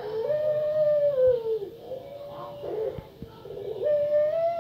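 Female puter pelung (ringneck dove) cooing: two long, drawn-out coos, each opened by a short stuttered note, then held steady before falling away at the end.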